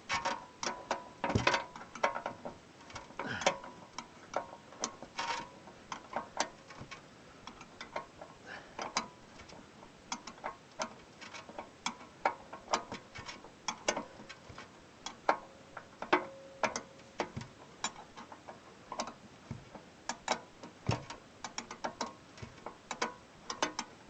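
Hand tools clicking and tapping on the metal parts of a Buran snowmobile during a repair. Irregular sharp clicks and knocks run throughout, some of them ringing briefly like struck metal.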